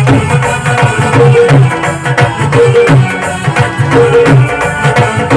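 Live devotional folk music (bhajan) with a steady hand-drum beat and a repeating melody.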